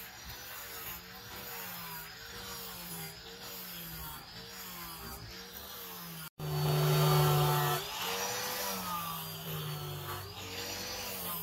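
Angle grinder with a flap disc grinding and smoothing a leaf-spring steel knife blade, its motor pitch dipping and recovering in a regular rhythm about one and a half times a second. After a brief cut about six seconds in, it runs louder and steady for about a second and a half, then the rhythmic dipping resumes.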